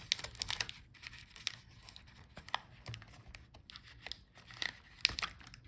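Small irregular clicks and scratches of hands and a tool working at a laptop's battery connection and fastenings as the battery is disconnected.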